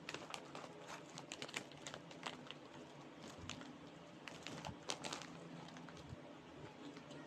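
Plastic-foil snack bag of ube-filled crackers crinkling as it is handled and reached into: a cluster of sharp crackles in the first couple of seconds and another burst about four and a half seconds in.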